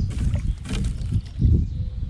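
Water sloshing and splashing against a kayak, with a few knocks and handling bumps, as a bass is held in the water for release. There is a brief sharper splash about two-thirds of a second in and a heavy low surge near the middle.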